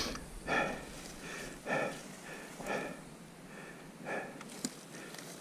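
A man breathing hard, winded from exertion: four heavy breaths about a second apart.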